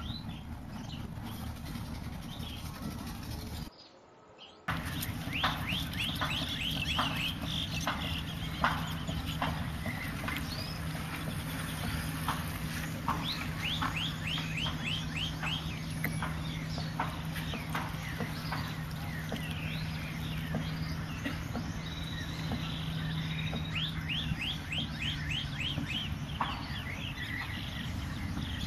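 Small birds chirping in quick runs of short, falling notes, over a low steady rumble. A low, even hum comes in partway through and fades out near the end, and the sound drops out briefly about four seconds in.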